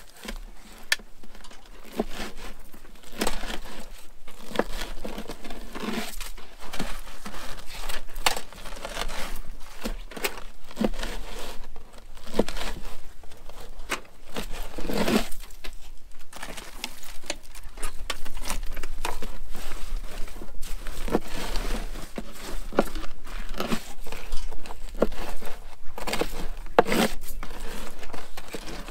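Longline hooks being baited by hand: a busy run of irregular clicks, rustles and tearing sounds from the bait and hooks, over a low steady hum.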